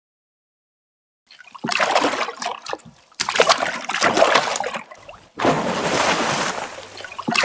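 Water splashing: after a silent start, three large splashes about two seconds apart, each dying away into spatter.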